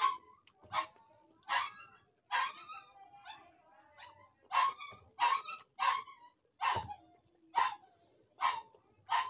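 A dog barking over and over in short, sharp barks, about one every three-quarters of a second.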